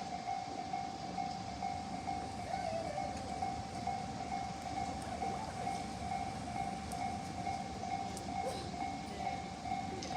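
Japanese level-crossing warning bell ringing in a steady repeating pattern, with a train rumbling past on the tracks underneath it.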